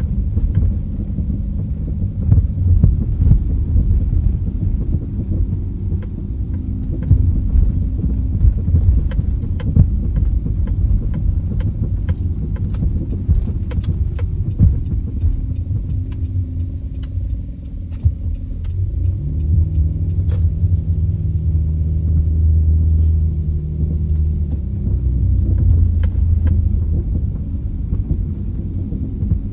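A Nissan E52 Elgrand gives a steady low vehicle rumble with irregular sharp clicks and knocks scattered through it: the abnormal noise reported from the front passenger side. A deeper steady drone joins in for several seconds past the middle.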